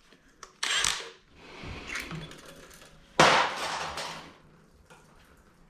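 Two sudden metallic clatters of engine parts and tools, one shortly after the start and a louder one about three seconds in that trails off over about a second.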